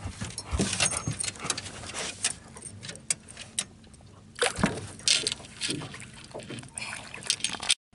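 Water splashing and sloshing against the side of a boat as a bass is lowered by hand into the lake and released, with irregular small splashes and knocks.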